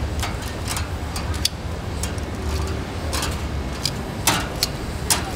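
Mantis shrimp grilling on a metal grate over charcoal: irregular sharp pops and crackles, the strongest about four and five seconds in, over a steady low rumble.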